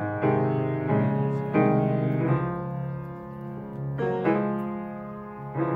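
Background music: a slow piano passage, with chords struck about every second and left to ring and fade.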